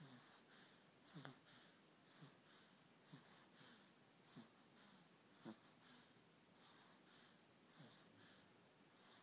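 Faint, quick breathing of a sleeping baby, a short soft breath about once a second, one a little louder about halfway through.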